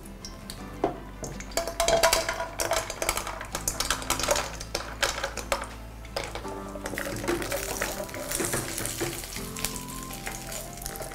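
Cashews clattering into hot ghee in a pan and frying, stirred with a wooden spatula: sharp clicks and taps, then a sizzling hiss near the end, over background music.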